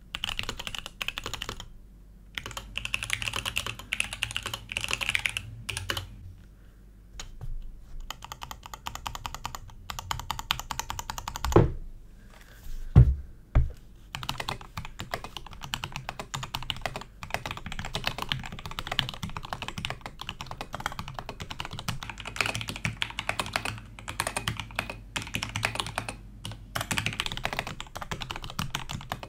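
Fast continuous typing on a CYBERBOARD mechanical keyboard with factory-lubed C³ Kiwi tactile switches, crisp and clacky, with a brief pause about six seconds in. Around twelve to fourteen seconds in come three heavy thumps, then typing resumes on a TGR Alice keyboard with linear switches, which sounds softer.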